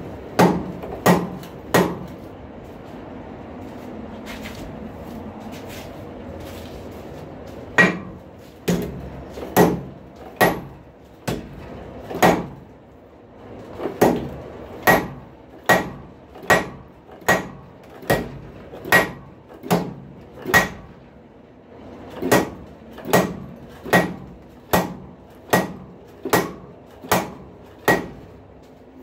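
Blacksmith's hand hammer striking a hot rail spike on an anvil: three blows at the start, a pause of several seconds, then a long, steady run of blows a little faster than one a second, broken by brief pauses.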